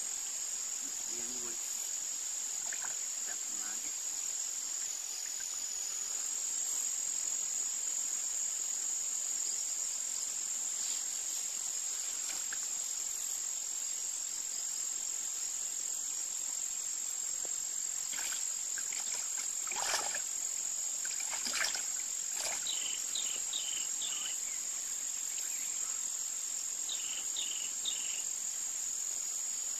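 Steady high-pitched chorus of insects. A few faint splashes and rustles come about two-thirds of the way in, and short chirps follow near the end.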